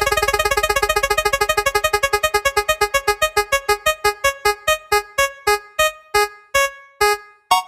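Spinning-wheel sound effect: a run of short electronic keyboard-like ticks that starts very fast and slows steadily to about two a second before stopping, as a colour-wheel spinner comes to rest on a colour.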